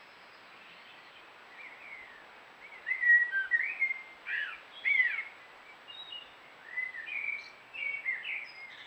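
Blue tits calling: a string of short, high chirps and quick rising-and-falling notes, coming in clusters, loudest about three to five seconds in and again near the end.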